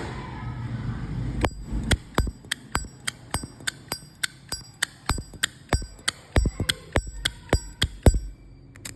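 Zippo lighter's lid being flipped open and snapped shut over and over. It makes sharp metallic clinks with a high ring, about two to three a second, starting after a second and a half of handling noise.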